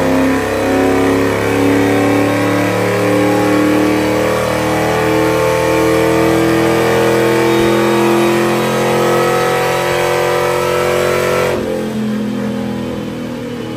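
Supercharged 5.4-litre V8 of a 2004 Ford F-150 SVT Lightning running hard at high revs on a chassis dynamometer, its note holding fairly steady. It drops off sharply about eleven and a half seconds in as the run ends.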